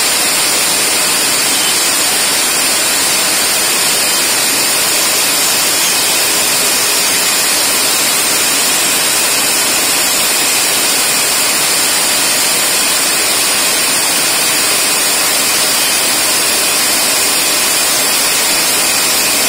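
Steady hiss of a compressed-air blast clearing chips, over a Deckel FP4A mill cutting 4140 steel with an 8 mm roughing endmill on an adaptive toolpath at full 21 mm depth.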